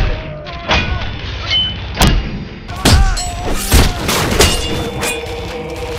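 Film fight sound effects: a rapid series of sharp hits and heavy thuds, with shouts and grunts between the blows. A sustained musical drone comes in about two-thirds of the way through.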